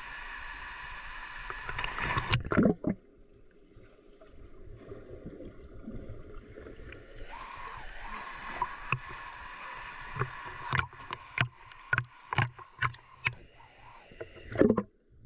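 Steady water noise in a rock gorge, broken about two seconds in by a loud splash as a person jumps from a boulder into the pool. Later comes a run of short, sharp splashes and lapping as water slaps against the camera at the surface, with one louder splash near the end.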